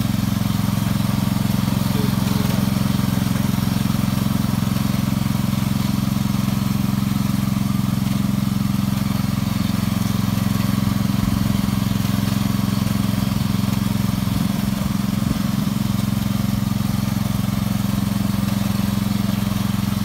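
Wheel Horse garden tractor's engine running steadily under load, pulling a single-furrow plough through garden soil.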